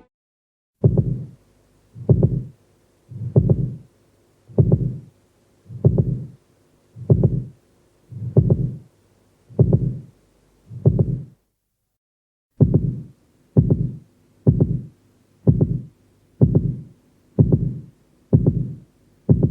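Heartbeat sound effect, deep slow thuds about one every 1.25 seconds. After a short pause near the middle it resumes slightly faster, about one beat a second.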